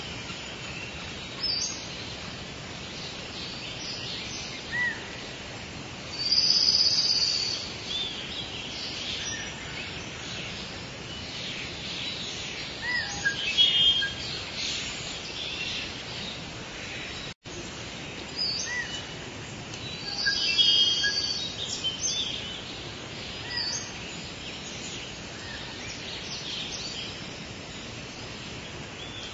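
Wild birds chirping and singing, short high calls with a few louder spells of song, over a steady background hiss. The sound cuts out for an instant a little past halfway.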